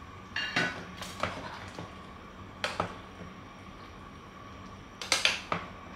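Kitchen handling sounds at a pot of curry on a gas hob: a few short clinks and knocks in four quick groups, the last near the end the loudest, over a faint steady hum.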